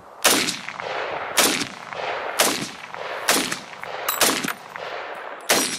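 M1 Garand rifle in .30-06 fired semi-automatically from the shoulder: a string of about six shots, roughly one a second.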